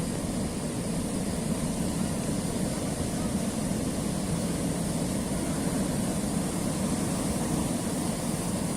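Sea surf washing on a rocky shore: a steady, low, even wash of water noise with no distinct breaks.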